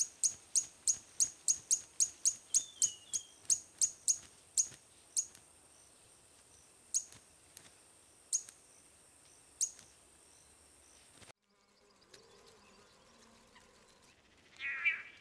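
A bird calling: a fast run of sharp, high, falling chirps, about three a second, that thins out to occasional chirps after about five seconds, over a steady high insect-like tone. About eleven seconds in the sound changes abruptly, and near the end louder, lower, warbling calls begin.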